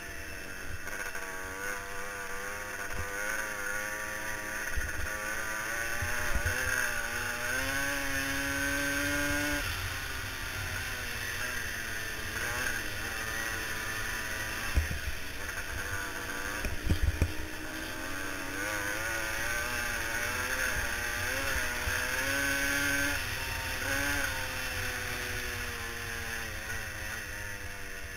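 Onboard engine of a dirt-track racing machine running hard, its pitch rising and falling repeatedly as the throttle opens and eases, over a steady rush of wind. Scattered low thumps come through, the loudest a cluster about 17 seconds in.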